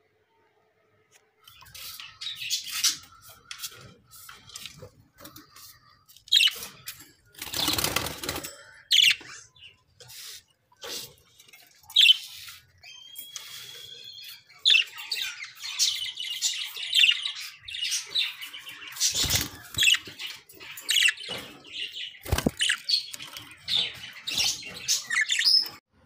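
Budgerigars chirping and chattering in quick, high calls. There is a brief flurry of wing-flapping about eight seconds in, and two dull thumps later on.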